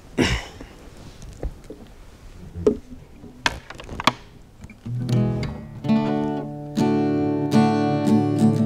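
Acoustic guitar: a few scattered plucks and taps, then strummed chords ringing out steadily from about five seconds in, the start of the song's intro.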